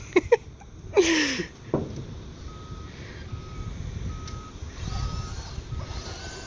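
A short cry about a second in, then electronic beeping sets in: one steady tone repeating a little more than once a second, like a vehicle's reversing alarm, over a low rumble.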